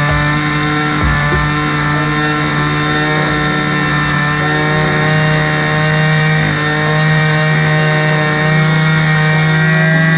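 Small two-stroke engine of a Craftsman gas string trimmer running steadily at high speed, its pitch holding even.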